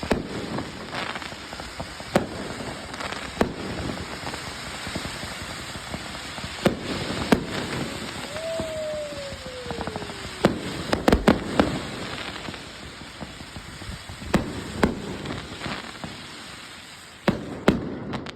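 Fireworks display: sharp bangs of exploding shells at irregular intervals over a continuous crackle, with a quick cluster of bangs a little past halfway. A whistle falls in pitch for about two seconds before that cluster.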